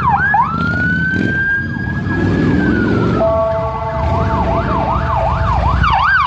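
Police sirens going past. First a fast yelp, then one long slow wail. From about three seconds in, a second siren joins with steady tones while the yelp repeats about twice a second, all over a low rumble.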